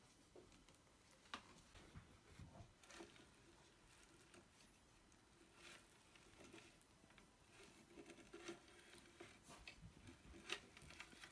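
Faint, irregular soft clicks and ticks from a KitchenAid ravioli maker attachment being turned by its hand crank, pressing filled pasta sheet between its rollers.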